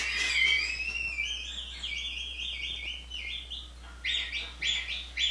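A high-pitched wheezing laugh that sounds like a bird. It opens with a quick rising squeal, then runs into short squeaky chirps at about four a second, with a few louder ones near the end.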